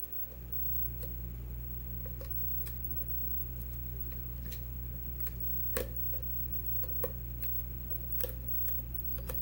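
Scattered small clicks of a lock pick and tension wrench working the pins inside an ABUS 80/45 padlock during single-pin picking, roughly one a second. Under them a steady low hum comes on just after the start and stays.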